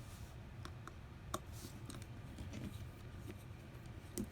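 Small scattered clicks and taps of a precision screwdriver and tiny metal parts while standoff screws are backed out of an iPhone SE's housing, with two sharper clicks, one about a second and a half in and one near the end.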